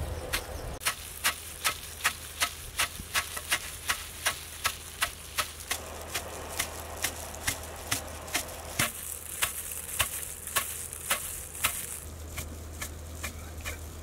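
Long wooden pestle pounding whole spices (coriander seed, black pepper and fennel seed) in a stone mortar, dry-grinding them to powder. Steady, regular thuds about two to three a second, a little lighter toward the end.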